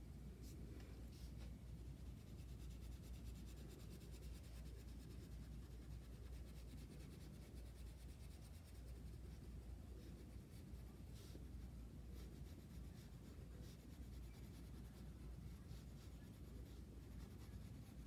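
Faint scratching of a wax crayon colouring in on paper, in many short strokes over a low steady room hum.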